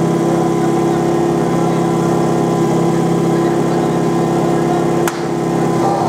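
Portable fire pump's engine idling with a steady drone. A single sharp crack about five seconds in.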